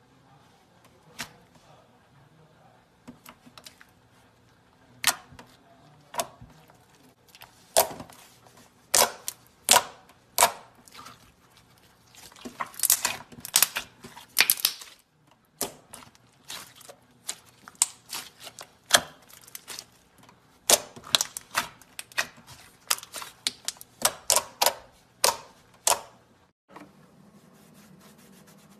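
Hands pressing, folding and stretching thick slime, giving sharp popping clicks as trapped air bursts. Some pops come singly and some in quick runs. Near the end the pops stop.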